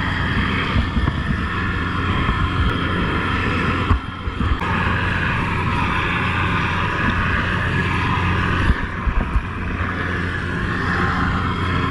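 Helicopter hovering low overhead: a steady engine and rotor hum over the rush of rotor downwash, with sea spray and wind on the microphone.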